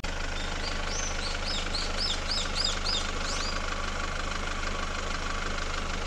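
Car engine idling steadily. A bird sings a quick series of about ten high, arching notes over it, from about one second in to the middle.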